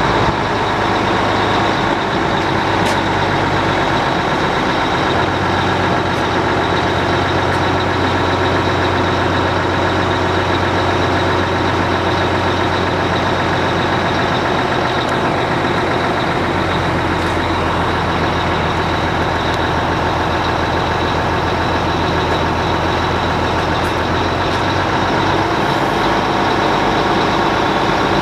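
Truck engine running steadily under power take-off, driving the hydraulic pump of a Fassi F140 knuckle-boom crane while its boom is retracted and folded. The low engine note shifts a couple of times, near a fifth and again past halfway through.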